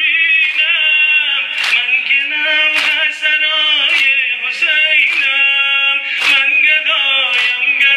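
Men singing a Persian noha, a Muharram mourning lament, in long drawn-out sung lines. Sharp slaps of sineh zani chest-beating keep time about once a second.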